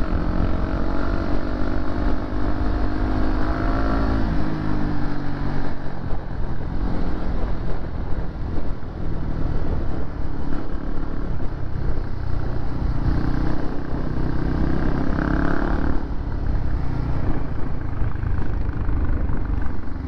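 Honda CB150R's single-cylinder engine running on the move, under heavy wind rumble on the camera microphone. Its pitched engine note stands out for the first four seconds and again briefly about fifteen seconds in.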